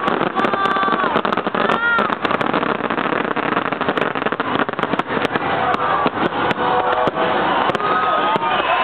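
Fireworks display: a continuous barrage of bangs and crackles, with crowd voices calling out over it.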